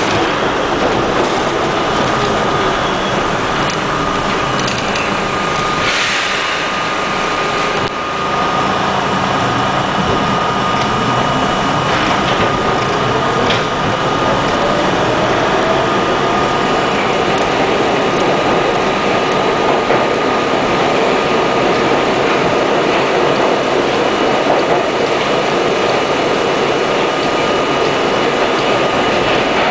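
Budd R32 subway cars running at speed, heard from inside: a steady loud rumble of wheels on rail with a constant whine. A few sharp clacks over rail joints come about a fifth and two fifths of the way in, and a second whine rises in pitch through the middle.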